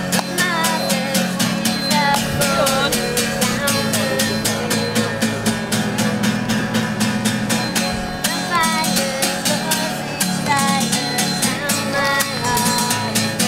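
Steel-string acoustic guitar strummed in a steady rhythm, with a woman singing a melody over it: live street busking.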